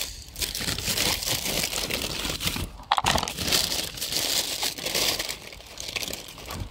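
Plastic bags and clear plastic packaging crinkling and rustling as a hand rummages through them, with a short break about three seconds in.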